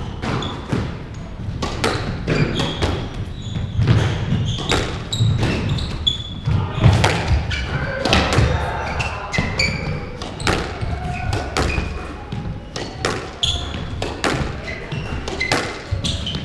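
A squash ball being struck by rackets and smacking off the court walls in a rally, in irregular sharp knocks, with short squeaks of court shoes on the wooden floor between them.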